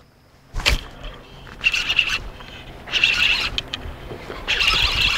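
A fishing reel cranked in short bursts while an angler fights a hooked bass, giving a hissing whir three times about a second and a half apart, after a single thump about half a second in.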